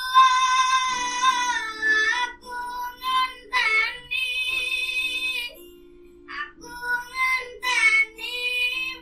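A boy's high, clear singing voice holding long notes in a Javanese song, accompanied only by acoustic guitar. The voice drops out briefly about six seconds in while the guitar carries on.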